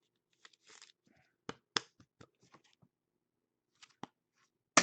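Trading cards being handled: a few sharp clicks and light rustling as cards are flipped and set down, with the loudest click near the end.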